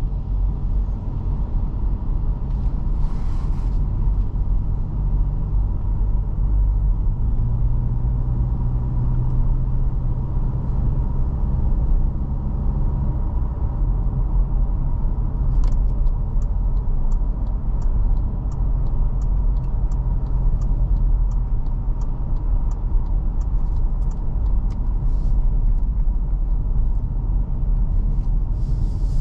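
A 2021 Toyota Fortuner's 2.7-litre naturally aspirated four-cylinder petrol engine and road noise on the move, a steady low rumble. Partway through, a regular light ticking of about two a second runs for around ten seconds, like a turn-signal indicator.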